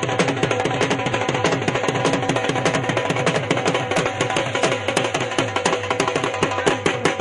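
Fast, continuous drumming, with many low strokes that slide down in pitch, over a steady background tone.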